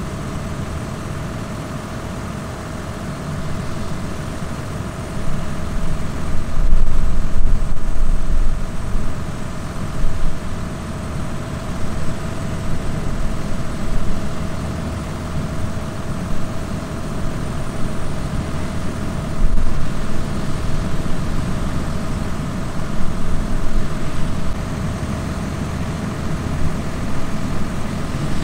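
Heavy farm machinery running under load: a steady low engine drone with a constant mechanical whine on top. It grows louder about five seconds in, as if the machine is coming closer.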